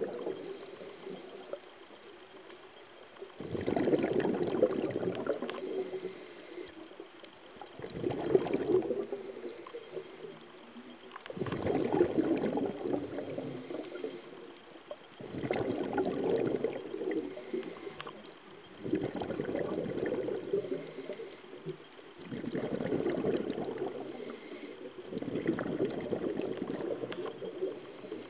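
Exhaled bubbles from a scuba diver's regulator rushing and gurgling past the camera underwater, in bursts every three to four seconds with quieter gaps for each inhalation.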